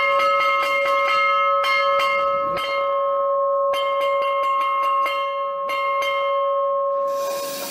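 Wall-mounted railway station bell rung by hand, its clapper struck against it in quick runs of many strikes over one steady ringing tone. The ringing dies away near the end as a rushing hiss comes in.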